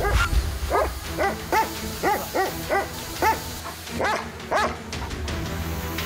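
German Shepherd barking about ten times in quick succession over background music, the barks stopping about three-quarters of the way through.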